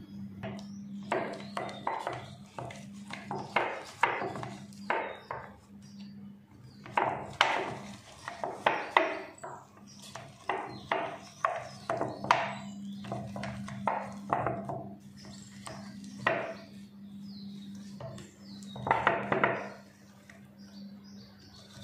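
A hand whisk beating softened butter in a stainless steel bowl, scraping and knocking against the metal in quick irregular runs of strokes, with a steady low hum underneath. This is the butter being creamed at the start of mixing a cake batter.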